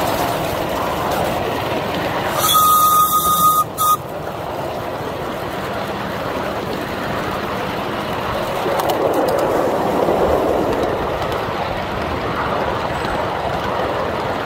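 A 5-inch gauge live-steam locomotive running, with steady rail and wheel noise. About two and a half seconds in, its whistle sounds one steady note for about a second and a half, followed at once by a short second toot.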